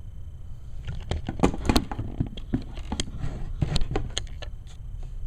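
Clear plastic blister packaging crinkling and clicking as it is handled, in a rapid, irregular run of sharp crackles.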